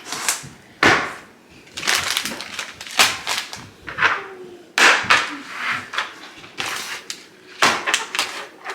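Packaged baking supplies being grabbed and handled in a hurry: a quick series of short crinkles, rustles and knocks.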